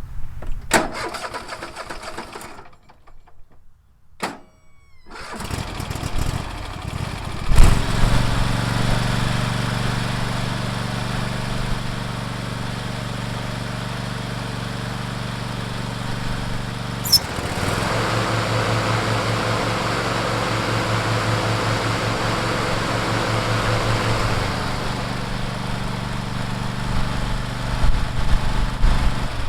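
The Husqvarna lawn tractor's 22 hp Kohler engine starts about seven seconds in and settles into a steady run. A click comes about 17 s in, then the engine runs noisier and a little louder for several seconds before settling back to a steady run near the end.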